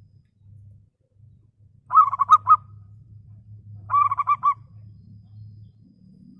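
Zebra dove (perkutut) cooing: two short phrases of quick, rippling coos about two seconds apart, over a faint low hum.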